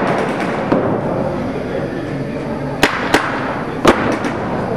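Paintball markers firing scattered shots as sharp pops. There is one about a second in, two close together near three seconds, and a louder one near four seconds followed by a few quicker, fainter pops. All of it sits over a steady background din.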